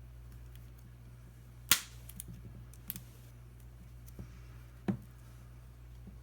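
A few sharp clicks, the loudest about two seconds in, as the replacement touchscreen glass of a Samsung Galaxy Tab 4 8.0 is pressed down and seated onto the tablet's frame. A steady low hum runs underneath.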